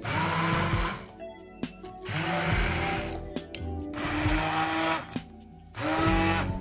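Handheld immersion blender running in short bursts, about four, its motor whining up to speed at each start and stopping between bursts, as it churns raw eggs, cottage cheese and flour in a glass bowl.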